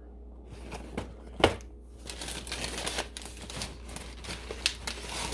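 Crinkling and rustling of packaging being handled, with a few sharp knocks, the loudest about a second and a half in.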